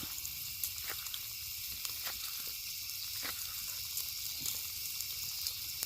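Bacon sizzling as it fries over a campfire: a steady hiss with scattered small pops.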